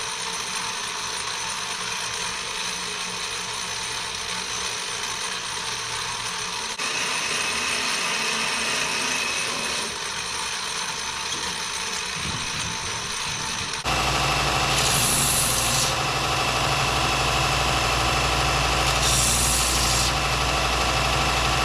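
Power tools drilling and shaping wooden knife-handle scales: one motor runs steadily, then about two-thirds of the way through a louder, deeper-running machine takes over, with two short bursts of hissing grinding as the wood is worked.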